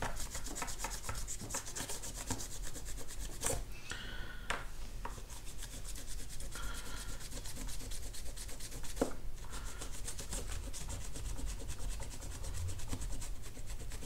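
Paper tissue rubbed rapidly back and forth over a small circuit board, a steady scratchy scrubbing with a few light knocks, cleaning the board's corroded contacts.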